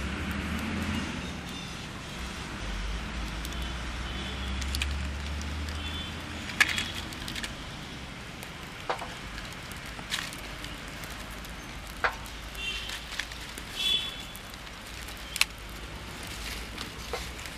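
Dried palm leaves and sticks being pushed into a clay stove and set alight: rustling kindling with scattered sharp snaps and crackles as the fire catches.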